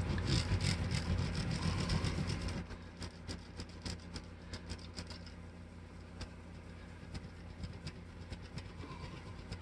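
Cloth rag scrubbing back and forth along an electric guitar's fretboard, wet with lighter fluid to clean off grime, with many small ticks. Louder for the first two or three seconds, then softer and scratchier.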